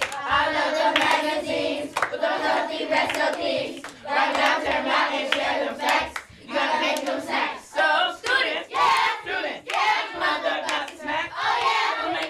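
A group of children rapping in unison, with hand clapping.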